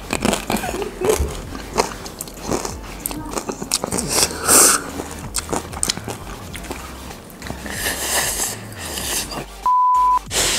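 Crunching and chewing of a Carolina-reaper Jolochip, with background music. Near the end a steady 1 kHz test-tone beep sounds for about half a second over an otherwise silent gap.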